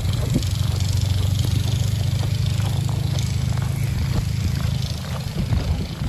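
Blizzard wind buffeting the microphone as a steady low rumble, with soft, irregular footsteps in deep snow; the rumble eases slightly near the end.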